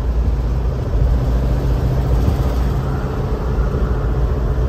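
A 1972 Volkswagen campervan's air-cooled flat-four engine running on the move, heard from inside the cab as a steady low drone with road noise. An unexplained noise runs along with it that sounds like something scraping.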